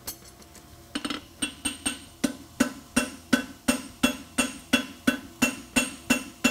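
Farrier's hammer striking a red-hot steel horseshoe on the anvil in a steady rhythm of about three blows a second, starting about a second in, each blow with a short metallic ring. The blows are drawing up a toe clip on the shoe.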